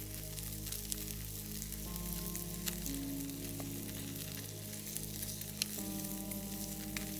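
Food sizzling in a pan, a steady hiss with small scattered crackles, over soft background music chords.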